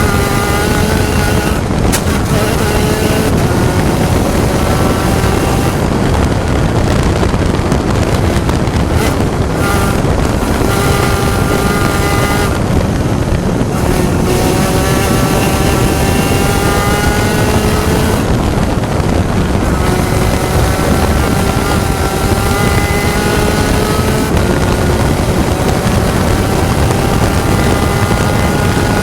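Onboard sound of a Spec Racer Ford Gen3's four-cylinder engine pulling through the gears, its pitch climbing again and again with breaks between pulls, under heavy wind noise on the microphone.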